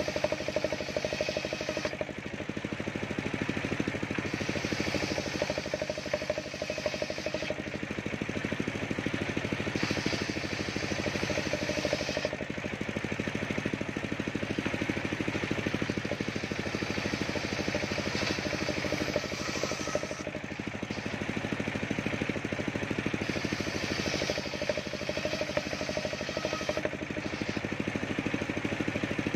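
Engine-driven bench circular saw ripping boards of waru wood: a steady engine drone under the hiss of the blade cutting, which swells and fades every few seconds as the boards are fed through.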